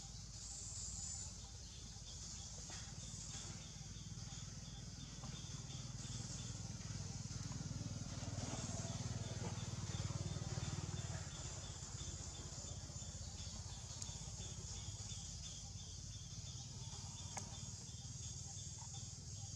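Steady outdoor background noise: a high hiss with a faint, regular ticking running through it, and a low rumble that swells around the middle and then eases.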